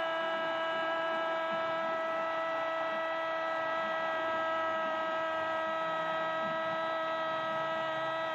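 A TV football commentator's long, drawn-out "goooool" shout, held on one steady pitch without a breath to call a goal.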